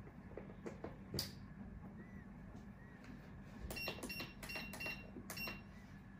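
Steel extraction tweezers clicking: a lone tick about a second in, then a quick run of about six small metallic clicks with a faint ring a little past halfway, over a low steady hum.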